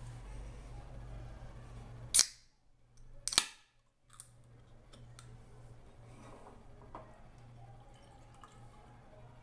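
Pull-tab of an aluminium drink can (Lotte Sac Sac grape) being opened: two sharp cracks about a second apart, the tab lifting and then the can top breaking open, with lighter clicks of fingers and the can on the counter around them.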